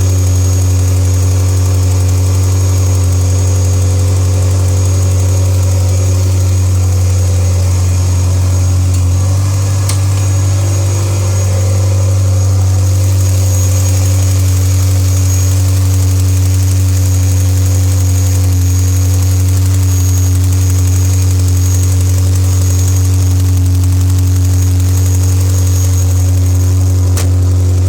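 Ferrari F355's 3.5-litre V8 idling steadily, with the rattle that its owner flags as an abnormal noise.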